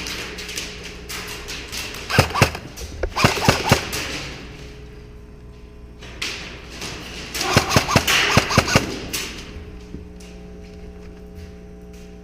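Airsoft gunfire in two short volleys of sharp, irregular cracks and BB impacts, about two seconds in and again about seven and a half seconds in, over a steady low hum.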